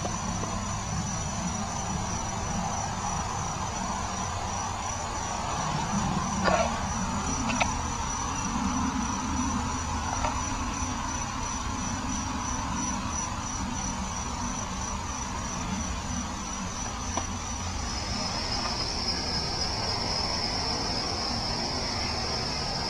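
Forest ambience of crickets trilling steadily at a high pitch, the trill shifting to a slightly lower, smoother tone about eighteen seconds in, over a steady low rumble. A couple of short sharp sounds come about six and a half and seven and a half seconds in.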